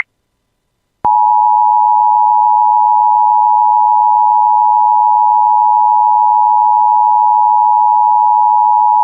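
Emergency Alert System attention signal: the two-tone alert (853 Hz and 960 Hz together), loud and perfectly steady. It starts abruptly about a second in, after a brief silence.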